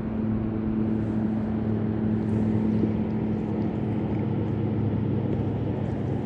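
Steady low hum of an engine running at a constant speed.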